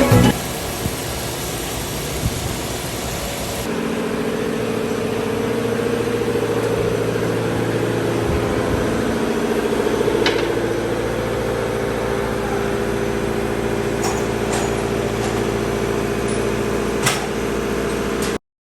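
Machine tool running while machining a metal valve body: a steady mechanical hum, joined about four seconds in by a steady pitched drone, with a few sharp clicks in the middle and near the end. It cuts off suddenly just before the end.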